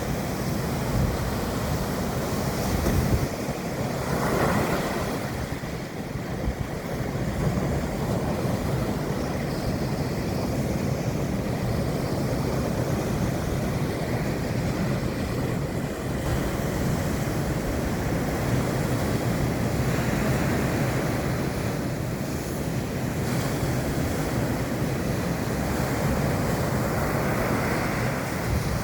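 Sea surf breaking on a beach, waves washing in with swells every several seconds, over a steady rumble of wind on the microphone.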